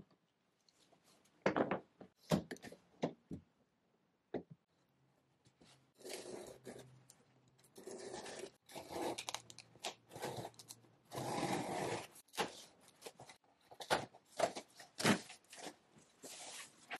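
A few knocks, then packing tape on a cardboard shipping box being slit and torn in several long tearing strokes, with the cardboard flaps crackling as they are pulled open.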